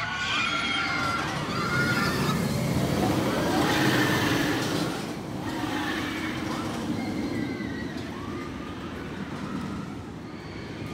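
Hakugei roller coaster train rumbling along its track with riders screaming. The rumble swells to its loudest a couple of seconds in and then eases as the train passes.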